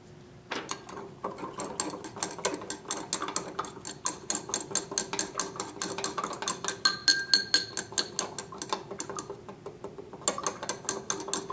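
Glass stirring rod clinking against the inside of a glass beaker while stirring potassium bromide into a copper sulfate solution to dissolve it: a quick, fairly even run of clicks, about four a second, starting about half a second in.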